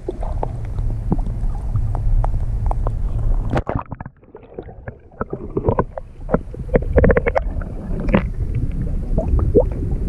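Water sloshing and gurgling around an action camera dipped at and under the surface, heard muffled, with a low rumble and many small knocks and clicks. It goes quieter for about a second some four seconds in.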